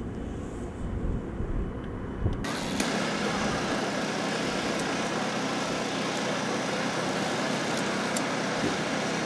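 A low rumble, then, from about two and a half seconds in, an abrupt change to a steady sizzling hiss with scattered faint clicks, as a heated knife blade is worked against a go-kart racing tyre and the rubber smokes.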